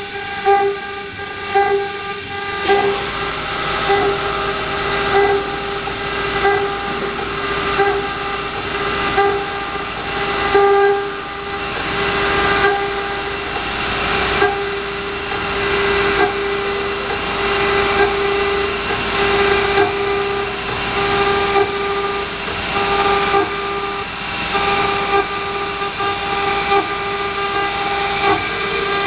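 A 5.5 kW water-cooled CNC router spindle carving a granite slab: a steady whine at one pitch with its overtones, over the grinding of the bit in the stone, which swells and eases as the tool moves through the cut.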